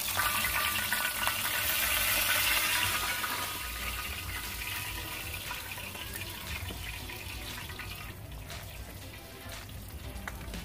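Fish sizzling in hot frying oil for the first few seconds, then water splashing and running as a raw lionfish is rinsed by hand.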